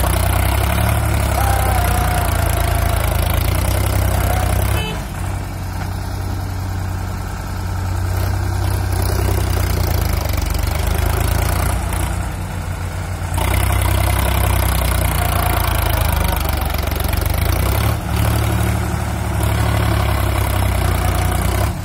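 Sonalika DI 47 RX tractor's diesel engine idling steadily, easing for a few seconds about five seconds in and getting louder again about thirteen seconds in.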